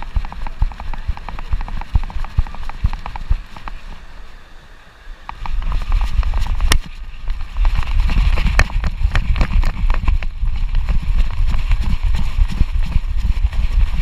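A dog's footfalls on sand heard through a camera strapped to its back: quick, rhythmic thuds with the harness and camera jostling. The thuds ease off briefly about four seconds in, then resume under a heavy low rumble of wind buffeting the microphone.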